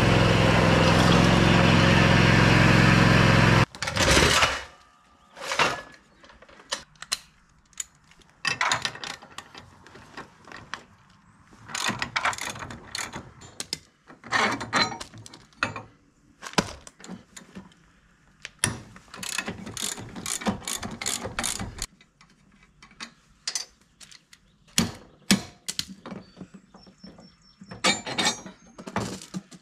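Zero-turn mower engine running steadily for about four seconds, then cut off abruptly. After that come scattered quick runs of clicks, ratcheting and metal clinks as a ratchet wrench loosens a front caster wheel and the wheel is worked off.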